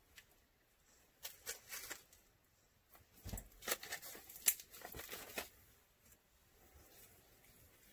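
A small plastic bag of glitter crinkling as it is handled, in bursts about a second in and again from about three seconds in, with a few light clicks and taps of small plastic tools.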